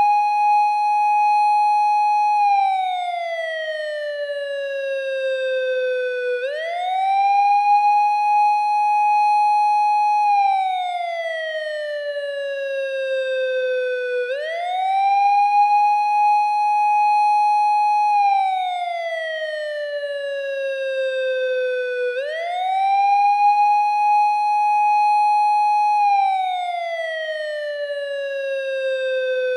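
Japanese police car siren wailing in its slow 8-second cycle: each time the pitch rises quickly, holds its high note for about four seconds, then slides slowly back down before rising again. It goes through about four cycles.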